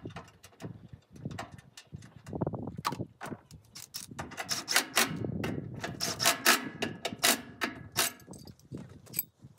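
Irregular sharp clinks and knocks of hard objects being handled during an engine oil change, sparse at first and coming thick and fast over the second half.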